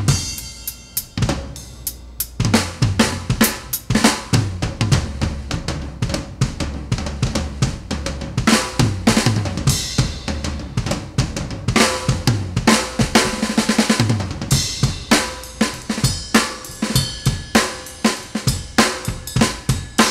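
Background music with a busy drum-kit beat: bass drum, snare and cymbals, thinning out briefly about a second in.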